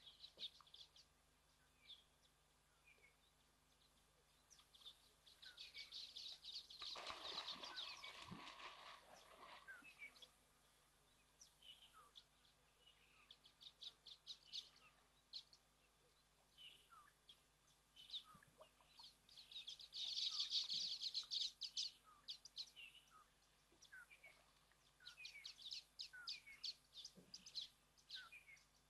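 Faint bird calls, chirps and clucks around a waterhole, with a louder burst of high bird chatter about twenty seconds in. About seven to ten seconds in, a fuller wash of sound from a hippo rolling over and churning the water.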